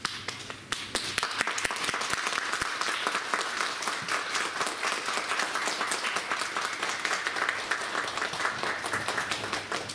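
Audience applause that breaks out suddenly and continues steadily as many hands clap at once.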